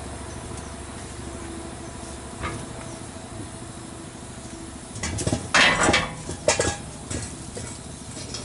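Metal clanking from tools and lug nuts being handled at a heavy truck's front wheel hub during a wheel change: a single knock about two and a half seconds in, then a quick cluster of clanks and clinks about five to seven seconds in, over a steady low hum.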